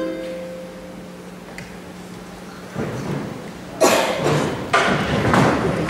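A ukulele's last strummed chord rings out and fades. About three seconds in, loud audience noise swells up, clapping mixed with voices.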